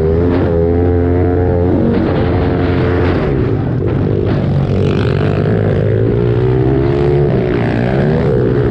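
Small single-cylinder pit bike engine revving hard while racing on a dirt track, heard from the rider's helmet, its pitch rising and falling with the throttle and gear changes.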